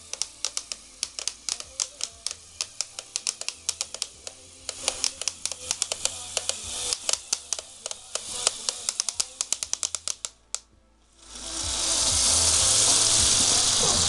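LEGO Technic crawler drivetrain clicking rapidly and irregularly as its gears slip under load while the model climbs. The more powerful batteries make the slipping more frequent. After a short break, a loud steady hiss takes over near the end.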